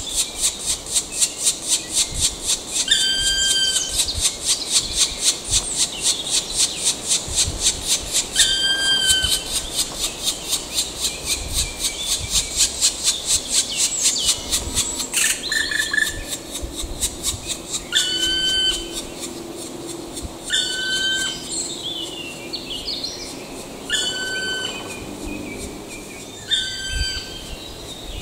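Black woodpeckers: a fast, steady chatter of about five notes a second, typical of nestlings begging from the nest hole while an adult is at it, stops about halfway through. Seven short, clear single calls ring out every few seconds.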